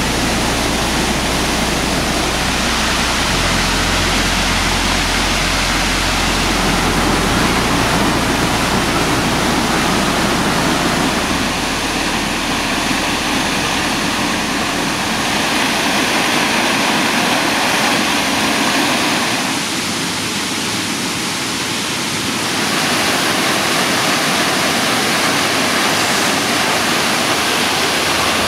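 Falling water of waterfalls rushing steadily, a loud even hiss of water. Its tone shifts abruptly a few times, and it dips briefly about two-thirds of the way through.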